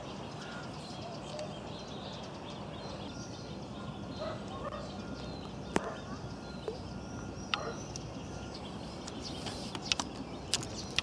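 Outdoor pond ambience with scattered distant animal calls and a few sharp clicks, the clicks falling in the second half.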